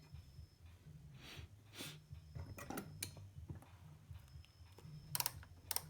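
Faint clicks and rustles over low, uneven background rumble, with a few sharper clicks near the end; no hum comes from the amplifier's speaker, a sign that the filter capacitors added to the USB Bluetooth kit's supply have cured its humming noise.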